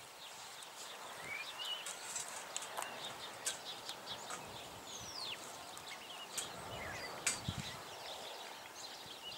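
Small wood fire of twigs and sticks crackling in a folding metal firebox as it catches, with irregular sharp pops and a louder crack about seven seconds in. Birds call now and then.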